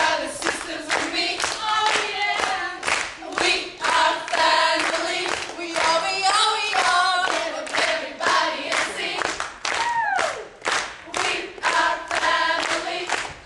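A group of young women's voices singing a song together in chorus, with the beat kept by steady rhythmic handclapping. About ten seconds in, one voice lets out a whoop that slides down in pitch.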